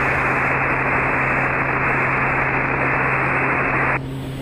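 Aircraft radio static: a steady hiss through the headset for about four seconds that cuts off suddenly, over the low steady drone of the Quest Kodiak's turboprop engine.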